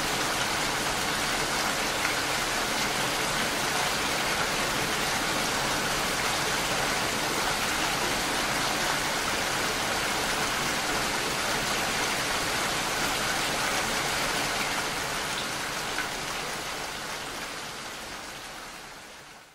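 Steady rain falling and splashing, fading out over the last few seconds.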